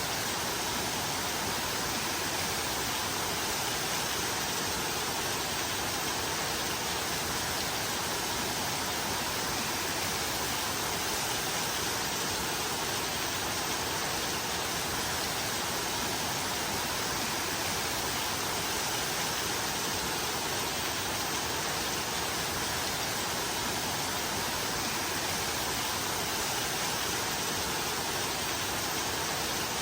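Steady, heavy rain: an even hiss with no single drops, thunder or changes standing out.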